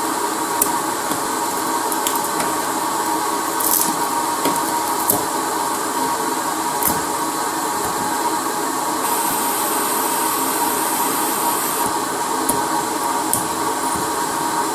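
Steady blower noise of a hot-air rework station running, with a constant hum. Over it come a few scattered small clicks and scratches of a metal pick scraping glass shards and glue off a smartphone's back.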